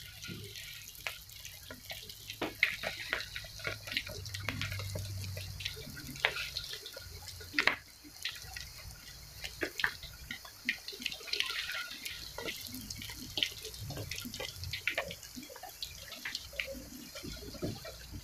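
Cabbage, carrot and egg batter frying in hot oil in a wok: irregular crackling and popping of the oil, a few sharp pops louder than the rest.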